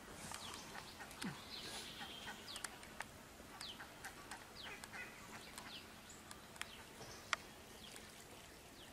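Faint birds chirping and calling: scattered short chirps that slide down in pitch, with a few sharp clicks, over a quiet outdoor background.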